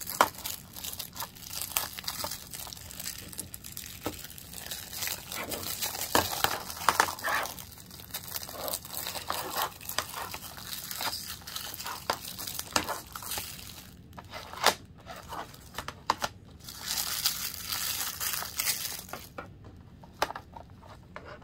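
Plastic shrink-wrap being peeled and torn off a Blu-ray case: irregular crinkling with many sharp crackles, easing off near the end.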